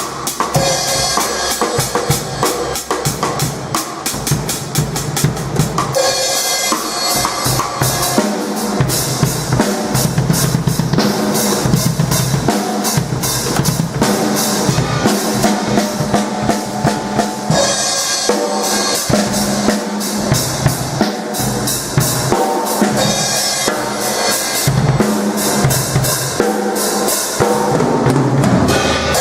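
A drum kit played without a break, bass drum and snare hits in a steady rhythm.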